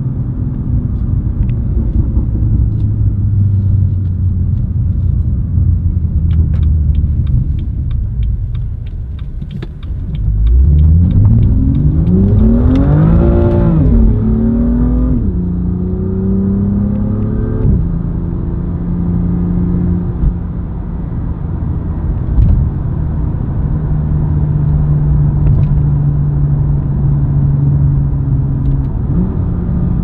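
BMW M2's turbocharged straight-six cruising at a steady drone, then about ten seconds in pulling hard with its pitch climbing for several seconds. An upshift follows, then a shorter climb and a second upshift, and it settles back to a steady cruise. Just before the acceleration there is a rapid run of faint ticks.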